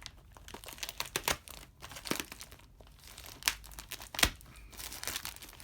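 Packaging wrapper crinkling and rustling as a mailed package is unwrapped by hand, in irregular crackles with a sharp snap about four seconds in.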